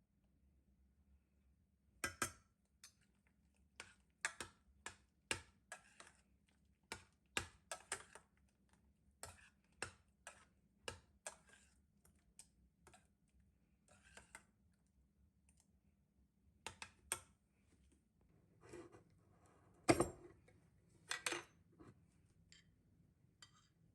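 Irregular light clicks and knocks of objects being handled, a few a second with pauses, and a heavier knock about twenty seconds in.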